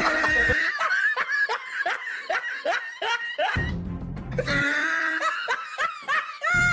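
A comic laughing sound effect, a run of short chuckles about three a second, over background music whose bass beat drops out and comes back twice.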